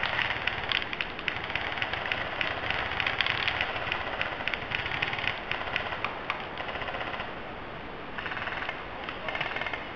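Airsoft guns firing: a steady clatter of sharp clicks and cracks, with two short, fast bursts of rapid fire near the end.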